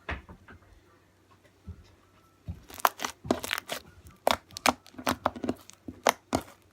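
Slime being squeezed and poked by hand, giving a fast, irregular run of sharp pops and crackles that starts about two and a half seconds in, after a single thump at the start.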